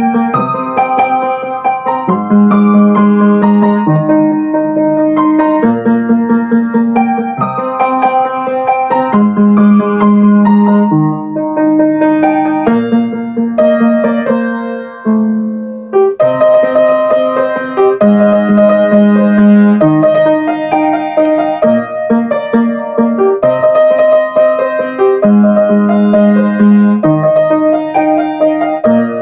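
Upright piano played solo: a slow ballad melody over chords that change about every two seconds. About halfway through it pauses briefly, then comes back fuller and brighter.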